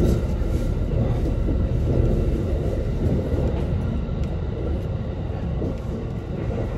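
A train running, a steady low rumble with a few faint clicks.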